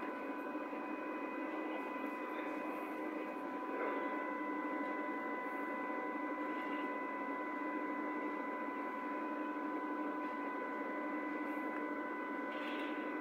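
Berlin U-Bahn H-series train standing at the platform with its doors open, its electrical equipment giving a steady hum with several constant high whining tones.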